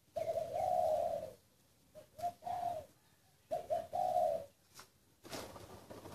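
A caged dove cooing: three rolling coo phrases of about a second each, spaced about a second apart, then a short burst of noise near the end.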